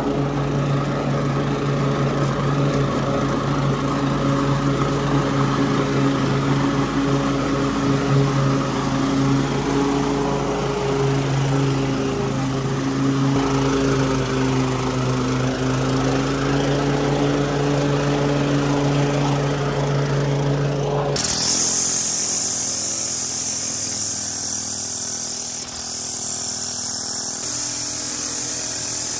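Gas walk-behind push mower engine running steadily while cutting grass. About two-thirds of the way through it cuts abruptly to a Stihl FS 111 RX string trimmer running with a high-pitched whine.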